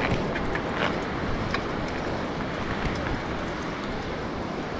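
Bicycle ridden along a sand beach, heard as a steady rushing noise of wind and motion on the bike-mounted camera, with a few light clicks and rattles.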